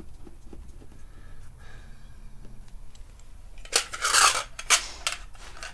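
Loose steel bolts being handled and rummaged in a small metal tin. Faint taps at first, then a loud clattering rattle of hardware about four seconds in, followed by a few sharp clinks.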